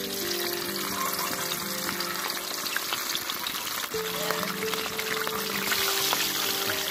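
Masala-coated chicken pieces sizzling and crackling as they fry in hot sunflower oil in a wok, the sizzle growing louder near the end as a second piece goes into the oil.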